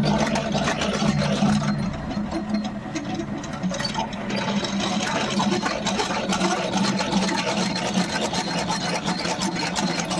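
Honey extractor spinning frames of honeycomb to sling out the honey: a steady mechanical whir with fast rattling ticks.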